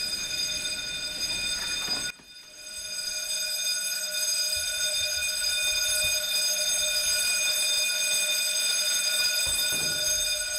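Building alarm sounding one continuous steady high tone, loud. It dips briefly about two seconds in and then comes back.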